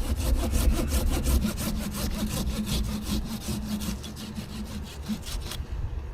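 Pruning handsaw cutting through a small basswood branch with quick, even back-and-forth strokes that stop suddenly about five and a half seconds in.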